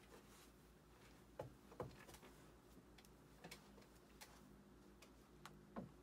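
Near silence: room tone with a faint low hum and about five faint, sharp clicks and taps scattered through it.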